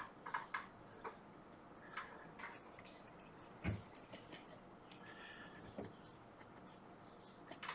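Cotton swab scrubbing a laptop logic board to clean off moisture corrosion, heard as faint scratching with scattered small ticks and one louder knock a little past the middle.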